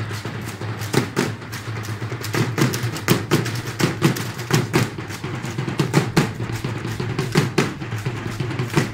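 Hand-held drums beating the steady dance rhythm for a costumed dance troupe, a fast even beat of about four strokes a second.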